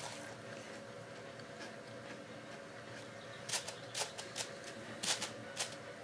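Low steady hum, then from about halfway through a handful of sharp, crisp crunches and clicks: dry chocolate cereal being taken straight off a plate with the mouth and crunched.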